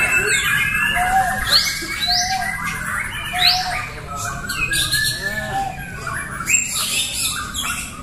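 Several caged white-rumped shamas singing at once in competition: overlapping loud whistled phrases, quick rising sweeps and chirps that follow one another without a break.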